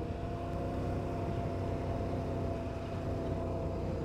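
KTM 1090 Adventure R's V-twin engine running at a steady cruising speed on the open road, its pitch holding constant, with wind rush over the rider.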